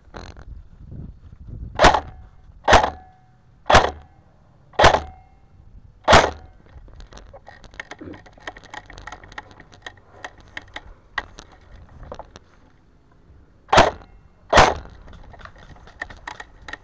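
Airsoft rifle firing single shots: five sharp cracks about a second apart, then a pause and two more in quick succession, several with a short metallic ring after them.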